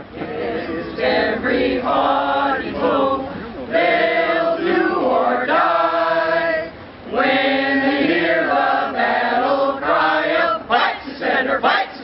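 A group of men and women singing a school song together, holding long notes, then breaking into a run of short rhythmic shouts near the end.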